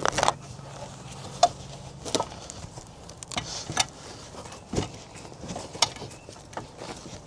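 Hand truck loaded with a boxed mini-split outdoor unit rattling and clunking as it is wheeled over bumpy lawn: irregular knocks and clicks, one every second or so.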